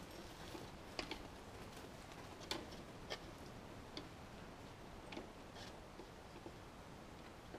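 Scattered light clicks and taps, irregularly spaced, over a faint steady background.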